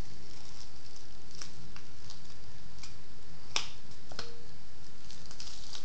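Plastic wrap crinkling and scattered light clicks as hands handle the wrap and small valve parts on a cylinder head. One sharper click comes about three and a half seconds in.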